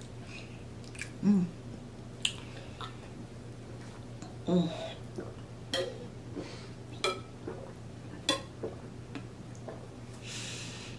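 A person drinking water from a glass bottle, with a run of sharp swallowing gulps about a second apart. Two short low hums come before the drinking, and a breath out comes near the end.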